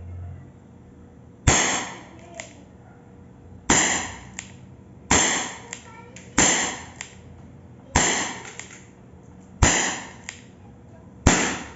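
Rossi CO2 revolver in 4.5 mm being fired seven times at an uneven pace, a sharp crack every one and a half to two seconds. A fainter click follows each shot.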